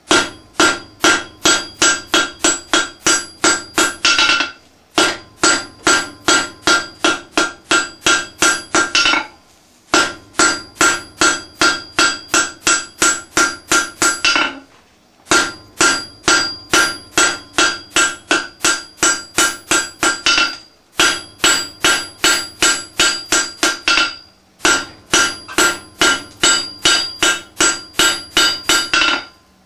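Hammer blows on red-hot steel over a steel anvil, each strike ringing out from the anvil. The blows come about three a second in runs of four to five seconds, with short breaks as the piece is turned.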